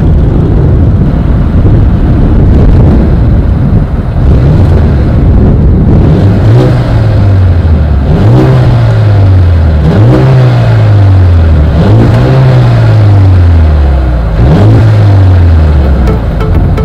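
Mercedes-AMG GLA 35's turbocharged 2.0-litre four-cylinder engine and exhaust at idle, then revved five times in the stationary car, starting about six seconds in. Each rev climbs quickly and falls back slowly.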